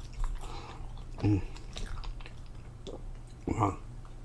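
Close-up chewing of food, with a short voiced "mm" about a second in and a "wow" near the end.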